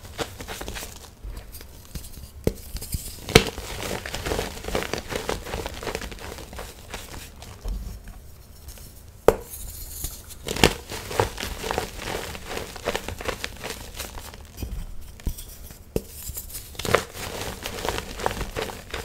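Hands crushing and crumbling blocks of gym chalk in a tray of loose chalk powder: dry, crunchy crackling with scattered sharp snaps as pieces break apart.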